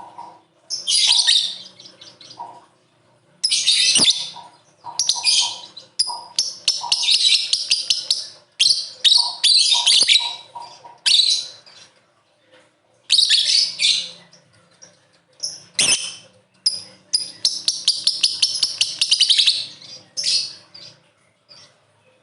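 Lovebird chattering in repeated bursts of rapid, shrill, high-pitched notes, some bursts running for two seconds or more, with short pauses between them.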